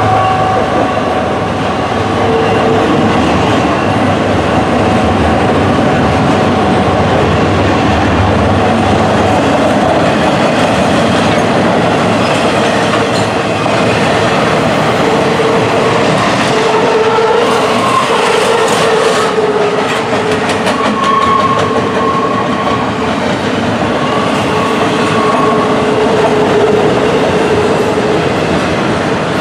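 CSX intermodal freight train passing: a diesel locomotive's engine hum fades over the first several seconds, then container well cars roll by with a steady rumble and clacking of wheels on the rails. Intermittent high-pitched wheel squeal comes and goes.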